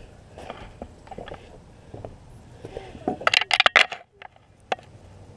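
Handling noises: a quick run of sharp clicks and rattles about three seconds in, then a few single clicks, as a freshly caught bluegill is handled over the water.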